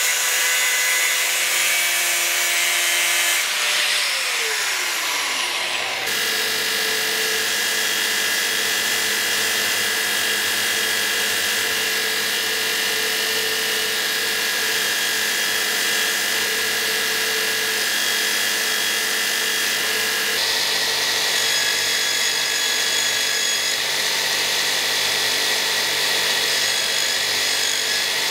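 Angle grinder grinding a steel dagger handle, then winding down with a falling whine. About six seconds in, a belt grinder takes over, running steadily as the handle is pressed against the belt, and its sound shifts about twenty seconds in.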